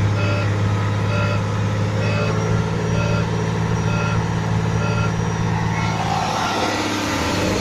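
Volvo truck diesel engine held at its high-idle limit of about 2200 rpm with the throttle floored while stationary, a steady note. A short beep repeats about once a second, and the engine note changes near the end.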